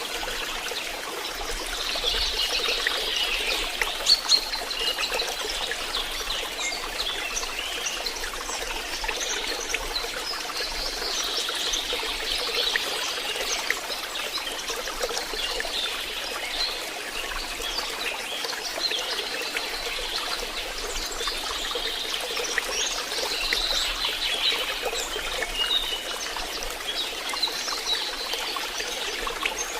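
Stream water trickling and burbling steadily, with many small irregular splashes.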